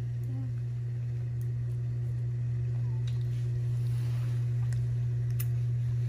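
A steady low motor hum with a few faint ticks.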